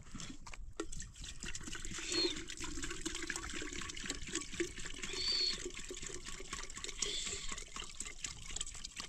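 Water trickling and splashing, with many small clicks and a few brief, faint high chirps.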